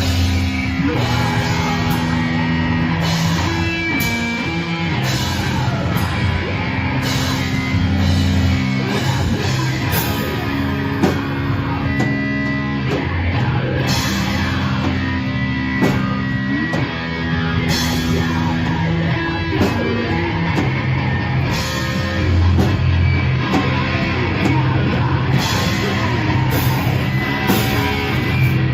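A rock band playing a heavy song live: electric guitar riffing over bass and drum kit, with low notes held for a second or more and repeated cymbal crashes.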